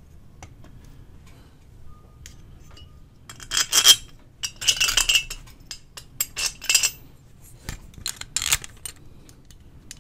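Metal clinking and scraping as a power transformer is mounted on a steel radio chassis: the transformer frame, mounting hardware and a screwdriver knock against the metal in several short bursts from about a third of the way in.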